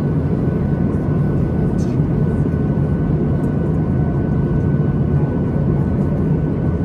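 Steady engine and airflow rumble of a Boeing 737-800 heard from inside the passenger cabin, with a faint constant whine above it.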